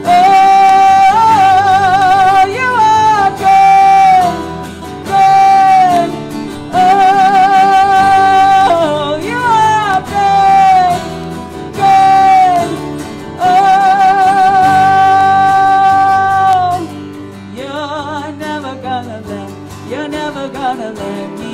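Worship song with a woman singing long held, wordless notes with vibrato over strummed acoustic guitar and electric guitar. About three-quarters of the way through, the held singing stops and the music drops to a softer passage.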